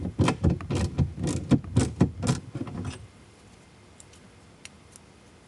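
Ratchet wrench clicking in quick strokes, about four a second, as a dash-bracket bolt is backed out. It stops about three seconds in, leaving a few faint metal ticks.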